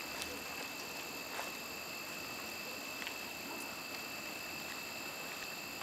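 Steady night-time insect chorus: a continuous high-pitched ringing drone over a soft hiss, with a few faint ticks.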